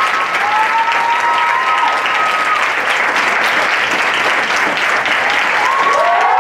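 Theatre audience applauding steadily at the close of a performance. Drawn-out cheers from a few voices rise and fall over the clapping near the start and again near the end.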